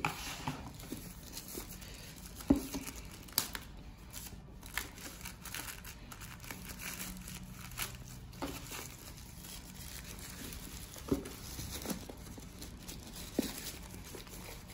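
Hands crinkling and tearing thin white packaging wrap off a black zippered carrying case, in irregular rustles and short crackles.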